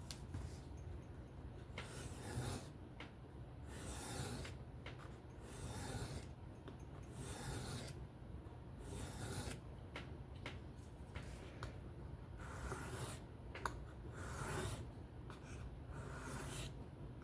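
Folding knife blade drawn across a sharpening stone in steady rasping strokes, about one a second, finishing the last passes on one side of the edge. A few light clicks fall between the strokes.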